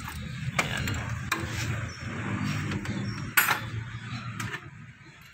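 Metal tools clinking and knocking a few times while a car's air-conditioning compressor is being taken off, over a low steady rumble. The sharpest knock comes about three and a half seconds in.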